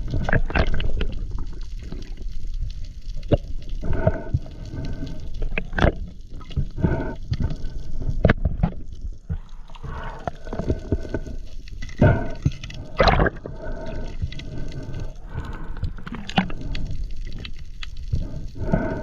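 Underwater sound of a diver: breathing and bubble noises every few seconds, each a short tonal gurgle, over a low watery rumble with scattered sharp clicks.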